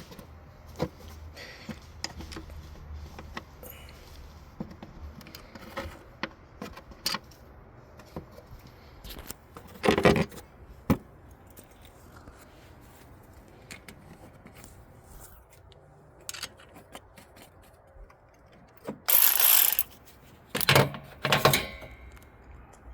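Hand tools and metal engine parts being handled during reassembly: scattered light clicks and clinks, with a louder clatter about ten seconds in and more, louder clattering near the end.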